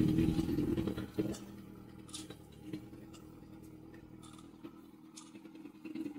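Sport bike engine running. After about a second it drops to a quiet, low idle as the motorcycle comes to a stop, with a few faint clicks.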